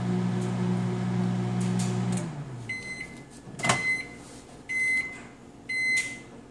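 Hamilton Beach 900-watt microwave oven running with a steady hum that winds down and stops about two seconds in as the cooking cycle ends. It then gives four end-of-cycle beeps about a second apart, and its door latch clicks open at the second beep.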